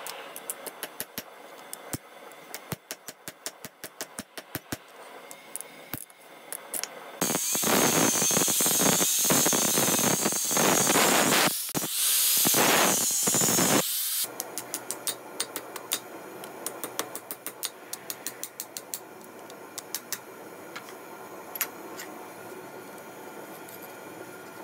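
Rapid, light hammer taps on a steel blank at the anvil. About seven seconds in, an angle grinder runs loudly against the metal for about seven seconds and cuts off suddenly, after which the taps resume.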